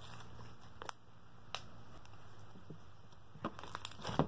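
Cookies-and-cream slime, made with cornstarch instead of clay, being stretched and squeezed by hand. It is mostly quiet, with a few faint sticky pops and clicks and a small cluster of them near the end as the slime is squeezed.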